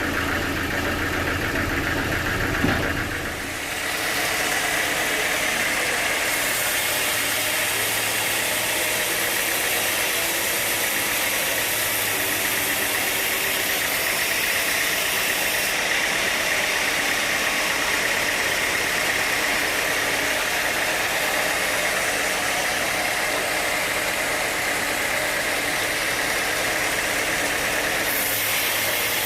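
Sawmill machinery running steadily. About four seconds in the low hum drops away and a higher, even hissing sound takes over, and the hum returns near the end.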